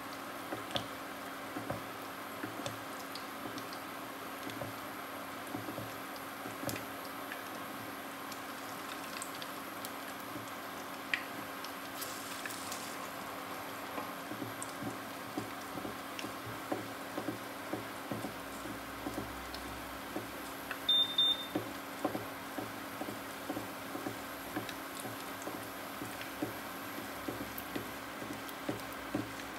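Martabak telur shallow-frying in hot oil in a nonstick pan: steady sizzling with frequent small crackles and pops. A short electronic beep sounds about two-thirds of the way through.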